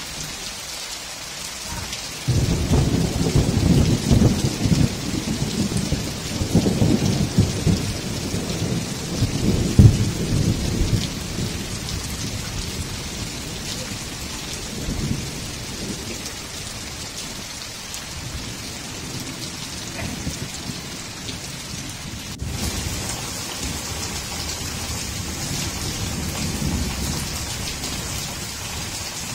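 Heavy rain pouring steadily onto the ground, with a long rumble of thunder that begins about two seconds in, rolls on for around nine seconds and is loudest near the ten-second mark. Fainter rumbles follow over the steady rain, and later the rain streams off a roof edge.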